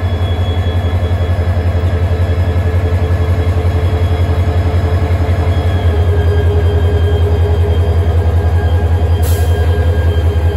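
KTM Class 25 diesel locomotive running as it moves slowly past, its engine giving a deep, fast, rhythmic throb that grows louder about six seconds in, with faint steady whining tones above it. A brief hiss near the end.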